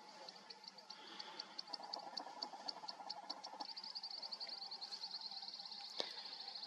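Steady ambience of rapid, regular high-pitched chirping, typical of insects such as crickets. A single sharp click comes near the end.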